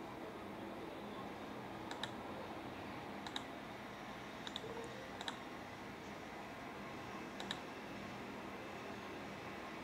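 A handful of short, sharp clicks from a computer's mouse and keyboard, spaced irregularly and several in quick pairs, over a steady faint hiss.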